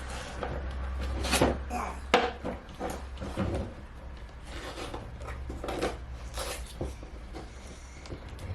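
Handling of a toy doll's box packaging as it is pried and pulled at: scattered short scrapes, rustles and knocks.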